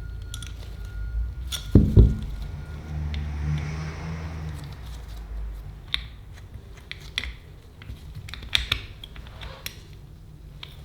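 Small metal parts of a Yale night latch clicking and clinking as they are handled and fitted, with two louder knocks about two seconds in.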